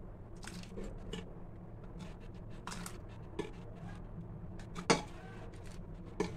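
Metal ladle knocking and scraping inside a pressure cooker pot as cooking water is scooped out from boiled peas. A few light clinks, with the sharpest about five seconds in.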